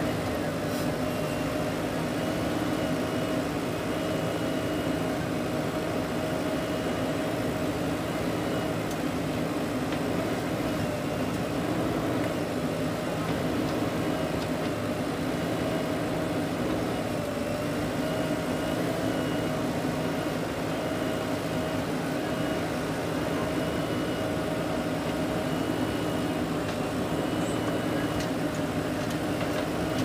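Diesel engines of a JCB 3DX backhoe loader and a farm tractor running together as a steady drone. A thin whine above it wavers slightly in pitch.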